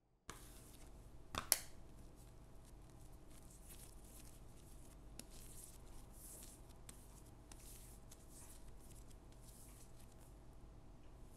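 Hands shaping soft bread dough into balls on a silicone mat: faint soft rubbing and squishing of the dough, with one sharp tap about a second and a half in, over a low steady hum.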